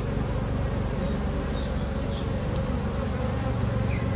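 Many honeybees buzzing around an opened hive, a steady low hum.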